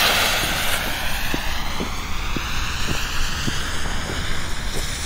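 Lit fuse of a BKS Alpha firework bomb tube hissing and spitting sparks as it burns down, with faint crackles about twice a second.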